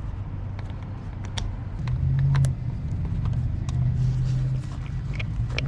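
A car engine idling with a steady low hum that gets louder about two seconds in. Scattered light clicks and taps sound over it.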